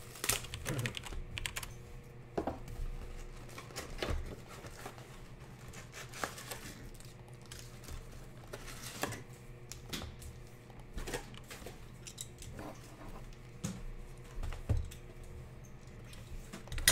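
Sealed Panini Prizm basketball card boxes being opened by hand: irregular crinkling and tearing of the plastic wrap, with sharp clicks and taps of cardboard flaps and boxes being handled.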